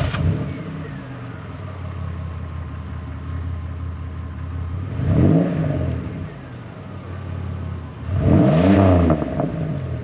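Exhaust of a Pontiac Grand Am GT's V6 with the muffler cut out (muffler delete), idling just after start-up. It is revved briefly about five seconds in, then again higher and longer about eight seconds in.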